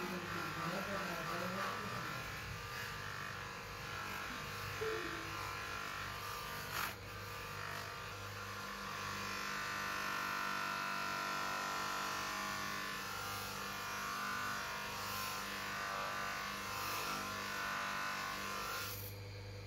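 Electric bench grinder running with a steady motor hum while a forged knife blade is pressed against its spinning wheel, the hissing grind of steel on the wheel growing louder through the second half and stopping just before the end. A single sharp click about seven seconds in.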